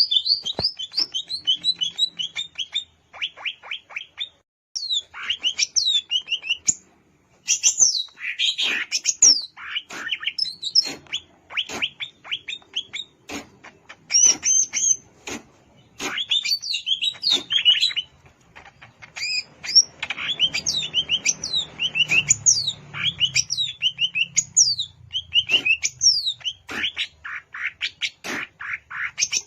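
Cucak ijo, a green leafbird, singing a long, varied song of quick sweeping whistles and chirps in rapid phrases, with short breaks between runs.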